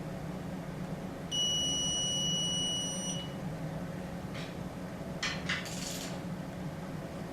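An electronic beep held steady for about two seconds, then a few sharp clicks, over a steady low hum.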